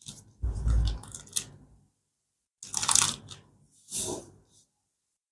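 Thin plastic protective wrap being peeled off a smartphone, crinkling in three bursts, with a low thump of handling about half a second in.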